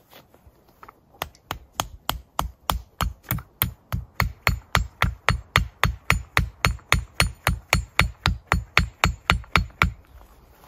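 The back of a hatchet hammering a wooden tent stake into the ground: a long run of evenly spaced blows, about three a second. They begin about a second in, grow louder over the first few, and stop near the end.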